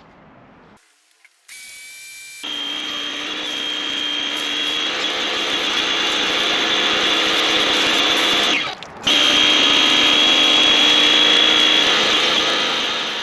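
Vehicle lift running as it lowers the car frame: a steady mechanical whir with a whine, stopping briefly about nine seconds in and then running on. A short high whistling tone comes just before it starts.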